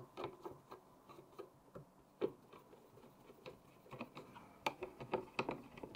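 Irregular light clicks and taps of small metal parts as an M.2 heatsink cover is fitted onto a motherboard and its screws are lined up, with a few sharper clicks about two seconds in and again near the end.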